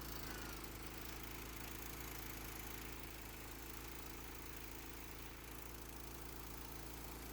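Small gas engine of a pressure washer running steadily at an even speed, freshly started.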